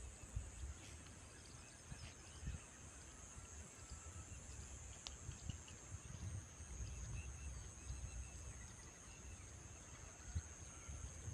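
Field ambience: a steady high insect drone runs throughout, with a few faint bird chirps and irregular low muffled thumps and rumble.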